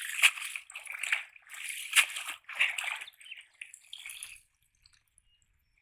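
Water sloshing and splashing as a wet cast net is shaken in shallow muddy water and lifted out, water dripping and streaming off the mesh. The splashing comes in uneven bursts and dies away about four and a half seconds in.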